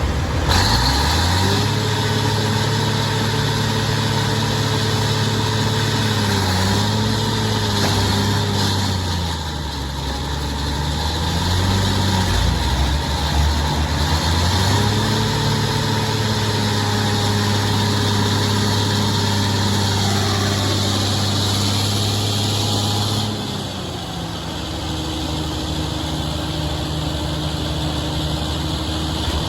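Heavy diesel engine revving up and holding at high speed under load. It eases off around ten seconds in, revs up and holds again, then drops to a lower steady speed near the end.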